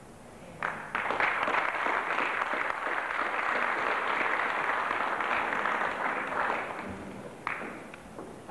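Crowd applauding: clapping starts sharply about a second in, holds steady, and fades away near the end.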